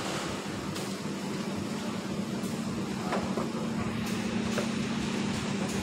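Moving walkway running: a steady low hum under a constant wash of noise.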